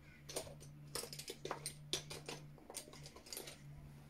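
Scattered light clicks, taps and rustles of small makeup containers being handled while a product is fished out, over a faint steady low hum.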